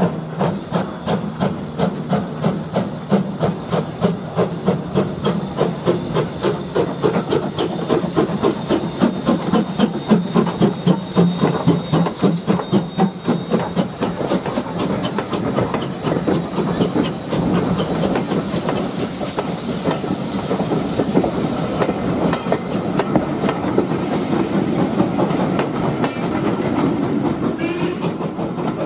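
LMS Ivatt Class 2MT 2-6-0 steam locomotive working a train away under power, its exhaust chuffing in regular beats of about two a second, with steam hissing. In the second half the beats blur into a steady clatter as the coaches roll past over the rail joints.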